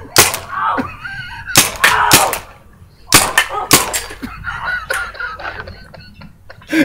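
A CO2 paintball gun firing about five sharp shots over the first five seconds, mixed with a woman's high-pitched yelps and squeals as she runs from the shots.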